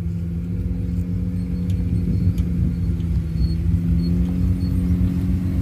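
Off-road vehicle's engine running steadily at low speed over a deep rumble, its note shifting slightly about two-thirds of the way in.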